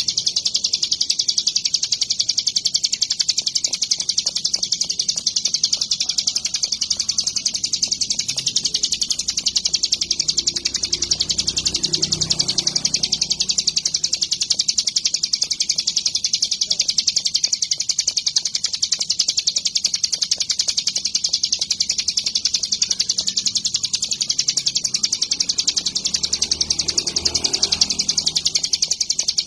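Ciblek gunung (a prinia) singing a high, very rapid, unbroken trill of repeated notes. A faint low rumble swells about twelve seconds in and again near the end.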